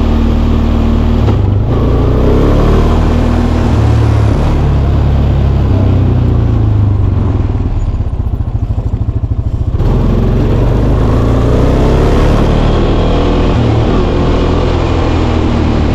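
A handheld power tool running hard under load on scrap metal, its motor pitch wavering as it bites.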